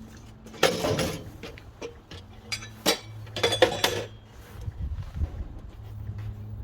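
Metal clinking and clattering in several bursts: about a second in, near three seconds, and again from about three and a half to four seconds, over a steady low hum.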